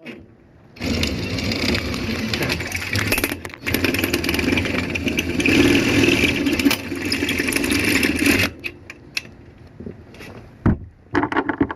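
Power drill running in two long runs with a brief pause between, as a magnetic latch sail stop is fastened on; it stops about two-thirds of the way through.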